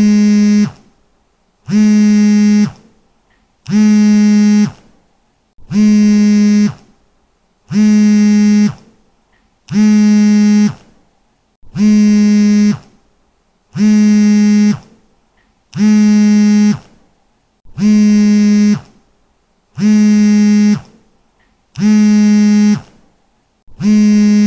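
Mobile phone vibrating: a loud buzz about a second long, repeating every two seconds.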